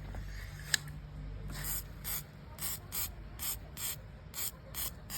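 WD-40 aerosol can spraying in a run of short hissing bursts, about two a second, onto a bicycle freewheel to clean it, after a single click about three-quarters of a second in.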